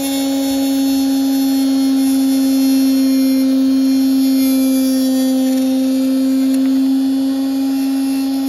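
Carbon Express arrow saw (1/7 hp, 10,000 rpm motor) running with a steady hum while a carbon arrow shaft is held against its spinning cut-off wheel and turned to cut it, adding a high hiss that thins out about seven seconds in.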